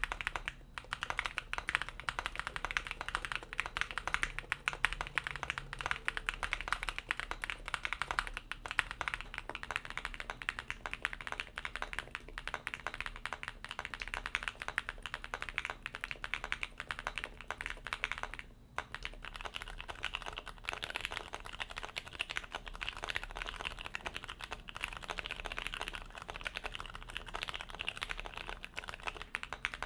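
Fast, continuous typing on a 40% mechanical keyboard with Jwick switches in an aluminum plate, keystrokes clacking in a dense stream, with a brief pause about two-thirds of the way through.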